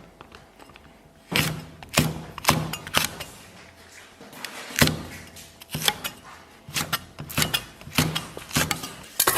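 Kitchen knife slicing long red chili peppers on the bias on a cutting board: a series of sharp knife strokes on the board, irregularly spaced at roughly two a second, starting about a second in.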